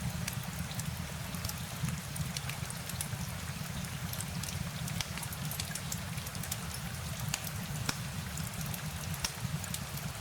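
Steady rain falling, an even hiss with a low rumble underneath and many scattered sharp ticks of individual drops.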